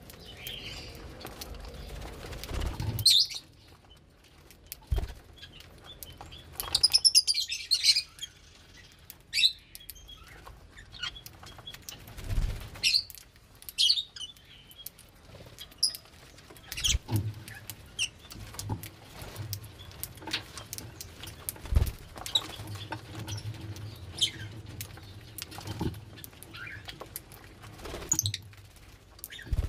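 Pet lovebirds chirping in short, scattered high calls, with a dense flurry of chirps about seven seconds in. Occasional sharp knocks and scuffles sound among them.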